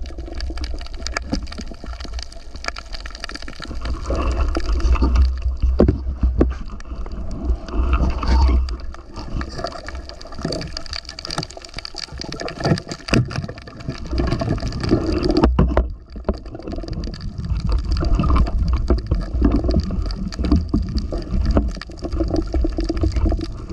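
Water sloshing and gurgling against the microphone, over a heavy, uneven low rumble, with scattered knocks.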